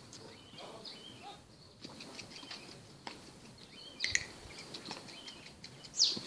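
Birds chirping in short scattered calls. The loudest is a quick, sharp falling call near the end.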